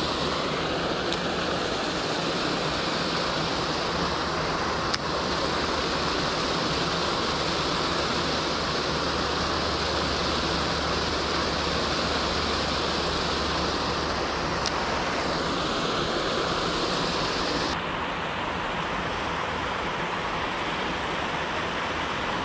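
Small waterfall pouring over stacked rocks into a pond: a steady rushing of water that turns a little duller about three-quarters of the way through.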